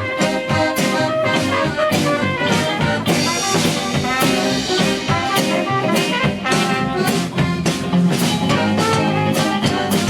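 A band playing an instrumental break over a steady drum-kit beat, with brass horns carrying the melody in a jazzy style.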